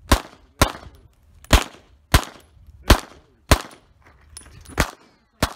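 CZ SP-01 9mm pistol firing a string of eight shots, mostly in pairs about half a second apart, with a longer pause before the last pair.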